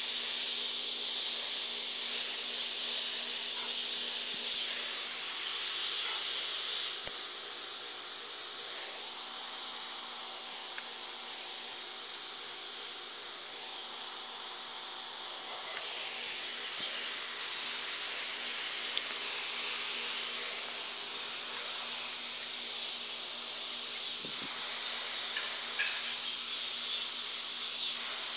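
Steady high-pitched insect chorus outdoors, with a few sharp clicks, the loudest about 7 seconds in and another about 18 seconds in.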